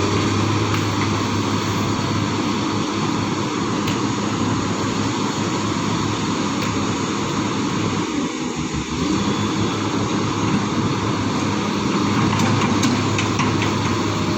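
Excavator's diesel engine running steadily while working, easing off briefly about halfway through.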